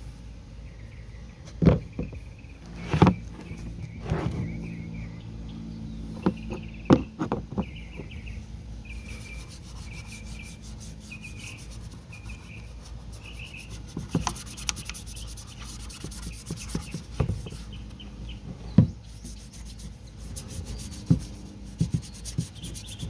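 Dirt and oil being rubbed and scrubbed off a motorcycle's metal exhaust pipe, with a handful of sharp knocks as the pipe is handled. A stretch of fast, dense scratching comes in the middle.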